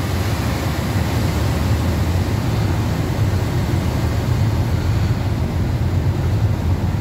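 Steady low rumble and hum of an Airbus A330's running systems, heard inside the cockpit, even throughout with no starts or stops.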